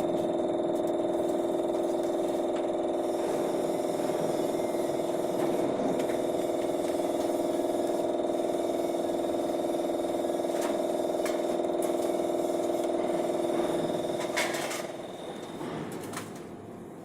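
CNC lathe with milling running through a machining cycle, with a steady mechanical whine. The whine cuts off about 14 seconds in with a couple of clicks, leaving a quieter background.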